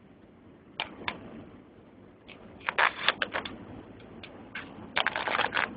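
Road noise inside a moving car, heard as a steady low rumble, broken by sharp clicks about a second in and by loud bursts of clicking and crackling around three seconds in and again near the end.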